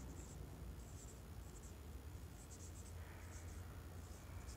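Marker pen squeaking and scratching on a whiteboard in a series of short, faint strokes as words are written, over a low steady hum.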